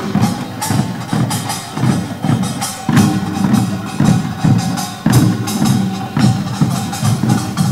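Korean pungmul folk percussion band playing a procession rhythm on janggu hourglass drums and buk barrel drums, with dense strikes and a louder accent about once a second.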